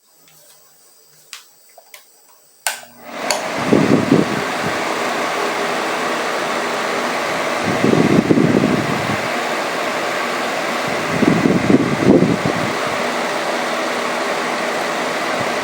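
Venti-Delta Delta Turbi 30 cm, 130 W table fan switched on with a sharp click about three seconds in, then quickly spinning up to a steady rush of air. A low buffeting recurs about every four seconds.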